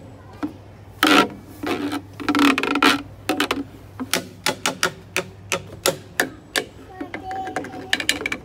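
A mallet tapping and scraping a large ribbed wooden guiro-style percussion instrument, giving an irregular string of sharp clicks and knocks that come in a quicker run of about three or four taps a second in the second half.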